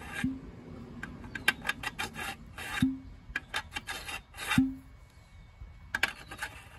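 Machined steel adapter coupling scraping and clicking against the end of a steering column shaft as it is worked onto it by hand. Three sharper metal knocks come about a second and a half apart, the last the loudest, and a short scrape follows near the end.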